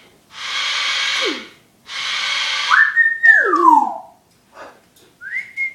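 Pet talking bird making two long harsh hissing rasps, then a whistle that rises and slides back down, and a second rising-and-falling whistle near the end.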